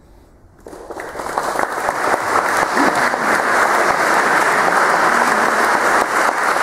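Audience applauding, starting about a second in and building quickly to steady, dense clapping.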